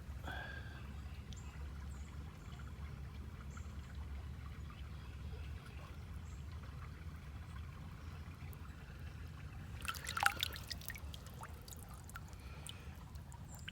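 Shallow creek water trickling under a steady low rumble, with a brief burst of splashing about ten seconds in.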